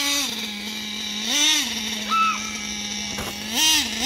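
Nitro-powered RC buggy engine running with a steady buzzing tone, its pitch stepping up briefly and dropping back a few times as the throttle is blipped.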